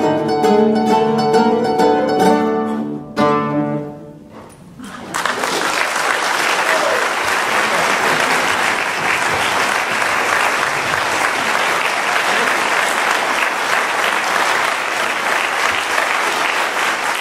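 A classical guitar ensemble plays its closing bars and ends on a final chord that rings and dies away about four seconds in. An audience then breaks into steady applause.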